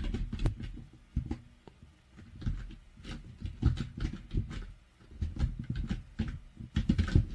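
Computer keyboard being typed on: irregular clusters of key clicks with short pauses between them.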